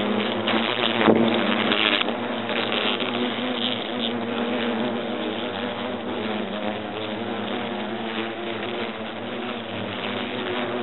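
European hornets buzzing in flight close by: a steady hum of several overlapping wingbeat tones, swelling briefly about a second in as one passes very close.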